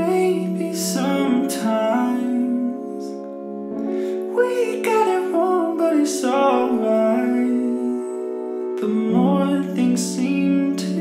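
Background music: held chords with a melody line moving above them. The chord changes twice.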